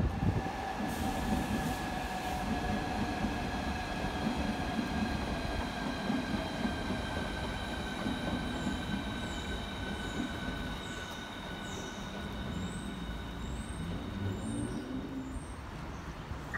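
Electric multiple-unit train running through the station: its traction motors whine in several steady tones that slowly fall in pitch as it slows, over wheel and rail rumble. A few short high squeaks come in the second half.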